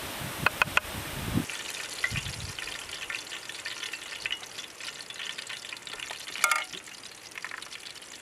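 Food frying and crackling in a pan while it is stirred, with one sharp ringing clink of a metal utensil against the pan about six and a half seconds in. Before that, in the first second and a half, there is a steady outdoor hiss with three quick clicks.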